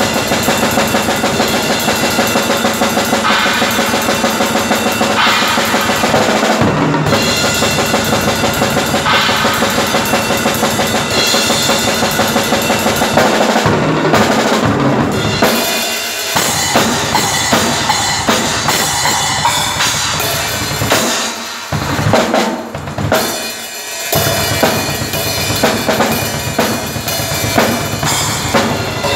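Full drum kit played fast and loud: dense bass-drum and snare strokes under cymbals, with a few short breaks and fills in the second half.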